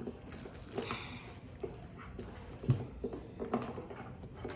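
Close-up eating sounds: irregular wet mouth clicks and lip smacking while chewing food, with one soft low thump about two and a half seconds in.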